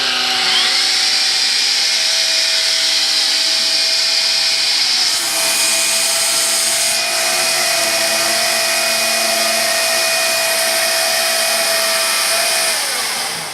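Vax Air Cordless U86-AL-B upright vacuum cleaner running as it sucks up sawdust from the floor. The motor holds a steady whine, turns hissier about five seconds in, and winds down with a falling whine as it is switched off near the end.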